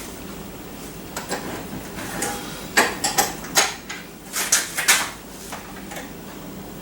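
Small metal fasteners clinking and rattling as a bolt, washer and wing nut are handled and fitted through the grinder's mounting base: a cluster of quick, sharp clinks in the middle of the stretch.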